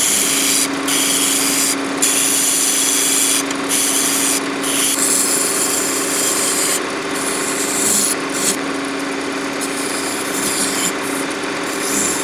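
Wood lathe running with a steady motor hum while a skew chisel cuts a spinning apple wood blank, making a loud hiss of shaving wood. The hiss breaks off for a moment several times as the tool lifts off the wood.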